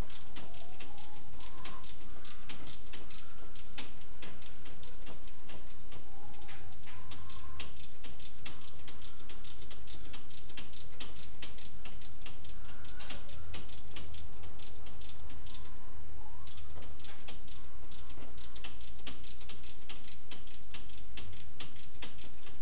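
Ratchet wrench clicking in long runs of quick ticks as bolts are worked during an alternator change, over a steady low hum.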